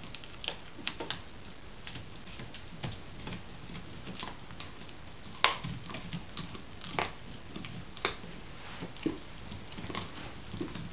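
Dogs gnawing on bones: irregular clicks and cracks of teeth on bone, one or two a second, the sharpest about five and a half seconds in.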